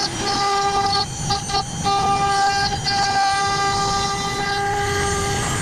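CNC router spindle running with a steady high whine over a rougher cutting noise while it carves wood.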